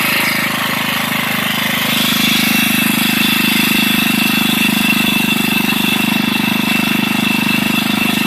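Whizzer motorbike's single-cylinder four-stroke engine idling steadily with the bike at a standstill, running through its prototype automatic clutch. A faint steady high whine joins about two seconds in, as the engine gets slightly louder.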